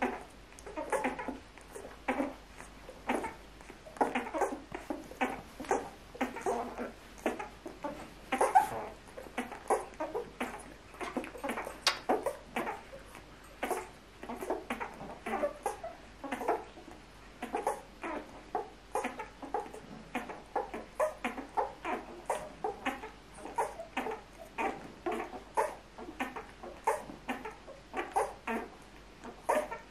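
Two-week-old puppies nursing, squeaking, grunting and whimpering in short sounds that come several times a second.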